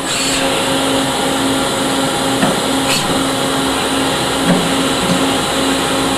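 Citizen A20 VII Swiss-type CNC lathe running a cycle in 303 stainless steel: steady spindle and coolant hiss with a low hum that breaks up about twice a second, and a few faint clicks from the tooling.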